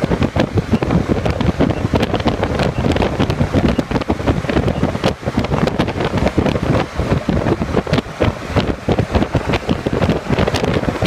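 Wind buffeting the microphone: a loud, uneven rumble that rises and falls in quick gusts.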